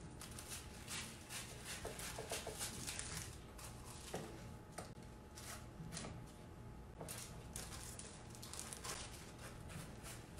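Scissors snipping through wax paper with melted crayon wax sealed between the sheets: a run of short, irregular snips and paper rustles.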